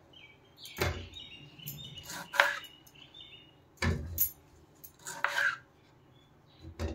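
Kitchen knife cutting tomatoes in half, the blade knocking against the cutting board about five times, roughly once every second and a half.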